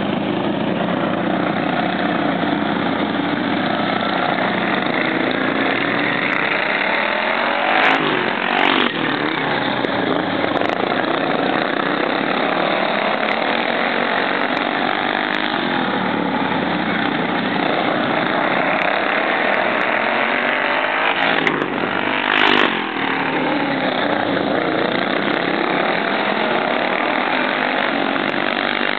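Several racing lawn mowers' small engines running hard together as they lap a dirt track. Their engine notes rise and fall as they go by, loudest when one passes close at about eight and again about twenty-two seconds in.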